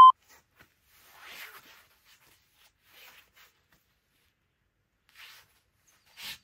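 An interval-timer beep cuts off at the very start, then a few faint, short rustling noises a second or two apart as a person shifts and turns over on an exercise mat.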